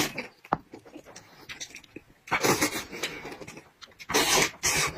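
Close-miked eating mouth sounds: wet chewing, sucking and lip smacks in a few short bursts, with the louder ones about two seconds in and near the end.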